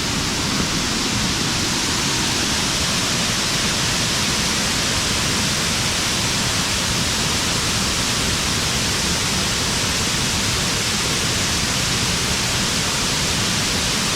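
Waterfall pouring, a steady even rush of water that does not change.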